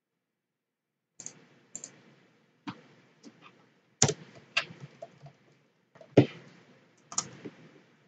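Typing on a computer keyboard: about nine separate keystroke clicks at an uneven pace, starting about a second in, two of them louder than the rest.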